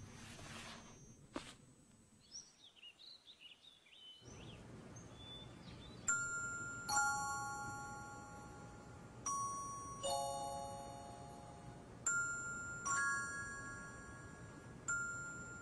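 Song intro played on bell-like chimes: pairs of pitched notes struck about every three seconds from about six seconds in, each ringing and fading away. Before the chimes come a soft hiss, a single click and a few faint high chirps.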